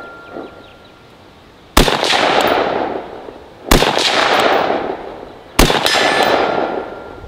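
Three AR-style rifle shots about two seconds apart, each followed by a long rolling echo, with a faint ring of struck steel after the third.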